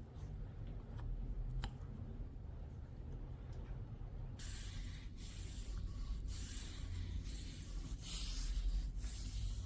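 Hand-worked abrasive rubbing strokes over a low steady hum, starting about four seconds in and repeating roughly once a second.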